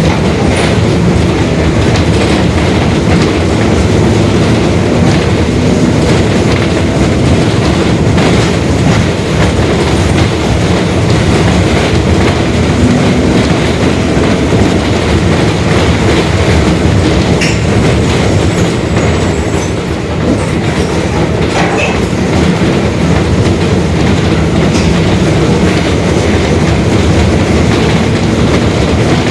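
Mercedes-Benz OF-1721 Bluetec 5 bus running under way: a loud, steady rumble of diesel engine and drivetrain, with the differential growl the uploader points out and a few sharp clicks and rattles.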